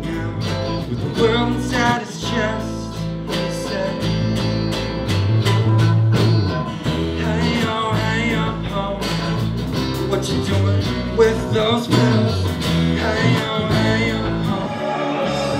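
A small band playing live: electric and acoustic guitars, a drum kit keeping a steady beat under a low bass line, and a man singing lead into a microphone.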